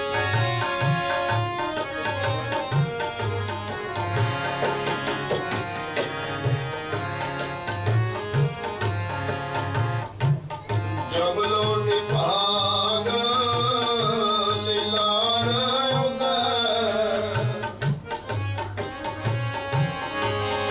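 Sikh kirtan on harmonium and tabla: the tabla keeps a steady beat under the harmonium's held chords. About halfway through, a voice sings one long wavering phrase for several seconds.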